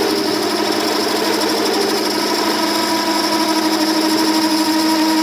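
Workshop machine tool running steadily: a constant hum of several fixed pitches over a fast, even chatter.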